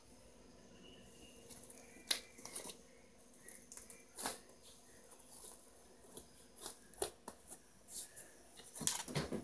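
Slime being pressed and squeezed by hand, making irregular short popping clicks that begin about a second and a half in, with the loudest cluster near the end.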